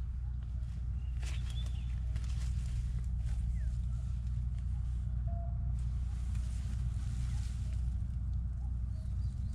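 Outdoor ambience: a steady low rumble with a few faint bird chirps and small scattered clicks above it.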